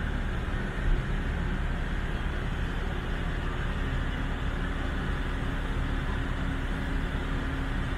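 Steady low machinery drone and rumble, with a steady hum joining about three and a half seconds in.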